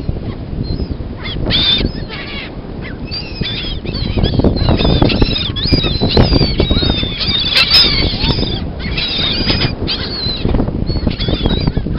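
A flock of beach birds calling over one another in many short squawking calls, busiest towards the middle, over a steady low rumble.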